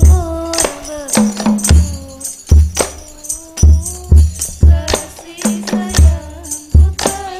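A young woman singing an Islamic devotional song (sholawat) with a hadroh ensemble: long held, gliding sung notes over deep rebana and bass drum strokes and the jingle of a tambourine, about two strokes a second.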